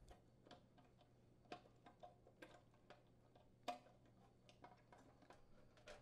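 Faint, irregular small clicks and ticks of a Phillips screwdriver and screws working against the sheet-metal solenoid housing as the assembly is seated and its two mounting screws are threaded in. One click a little before four seconds in is louder than the rest.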